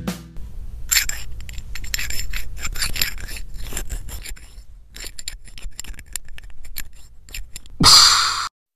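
A thin metal tool being worked in a door lock to pick it: many small, rapid metallic clicks and scrapes. A short, louder rustling noise comes near the end.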